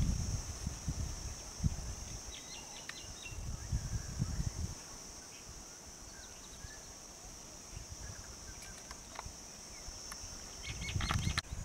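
Steady high-pitched insect drone with a few short bird chirps over it, and uneven low rumbles in the first few seconds and again near the end.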